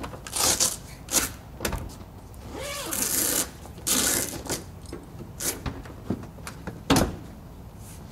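A zipper rasping in several short runs as a side window is unzipped and pulled free of a Jeep Wrangler JK soft top, with vinyl rustling and a sharp snap about seven seconds in.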